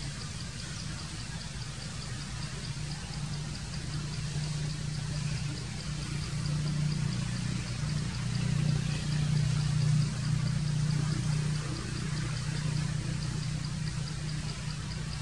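A steady low engine hum, like a vehicle idling, swelling louder for a few seconds in the middle. A faint, evenly repeating high ticking runs along with it.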